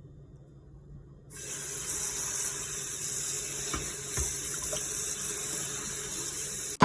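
Water running steadily from a tap, starting abruptly about a second in and cutting off sharply at the end.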